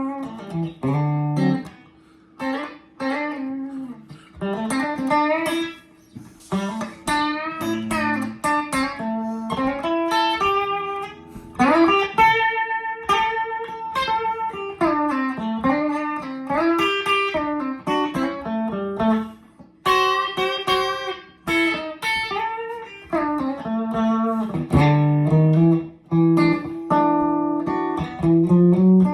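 Electric Esquire-style guitar with a single DiMarzio flat-pole bridge pickup, played straight into a 1975 Peavey Deuce 240T amp's normal channel with no pedals: phrases of single notes with bends, and chords, with brief pauses between phrases.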